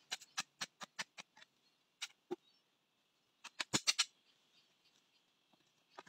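Sharp knocks and clicks of a long-handled hoe and bush knife chopping into forest soil and roots: a quick run of light strikes, then a heavier cluster of blows about three and a half seconds in.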